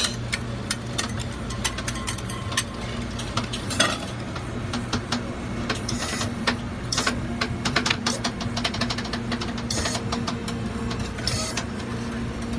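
Metal scraper scraping and tapping on a cold iron plate as a frozen sheet of chocolate ice cream is pushed up into rolls: an uneven run of short scrapes and clicks over a steady low hum.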